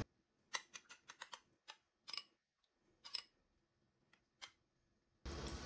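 Near silence broken by faint, scattered light clicks: a metal spoon tapping a glass baking dish as tomato paste is spread.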